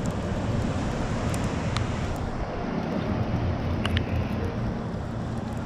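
Steady open-air wind and sea noise with a low rumble. A few faint ticks come through: one just over a second in, one near two seconds and a pair near four seconds.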